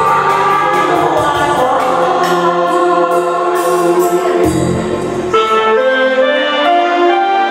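Music: a Vietnamese song performed as a man-and-woman duet over a recorded backing track. The singers sing into handheld microphones in the first seconds, then lower them for an instrumental passage.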